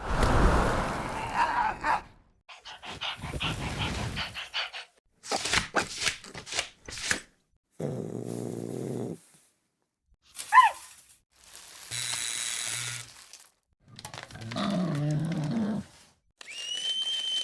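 Dog barking, whimpering and growling in a string of short cut-together clips, separated by brief silences. Near the end comes a steady high tone.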